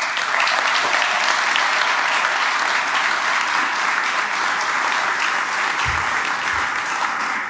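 Audience applauding, starting suddenly and holding steady, with a couple of dull low thumps about six seconds in.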